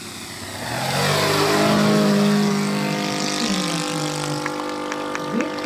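Saito FG-84R3 three-cylinder four-stroke radial petrol engine of a 1/3-scale Piper J-3 Cub model, running at high power as the plane passes low and climbs away. It grows loud about a second in, then its pitch drops as it goes past and it settles to a steady run.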